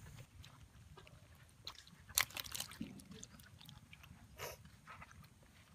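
Faint, scattered wet clicks and little splashes of live fish wriggling in a metal basin with a little water, loudest about two seconds in.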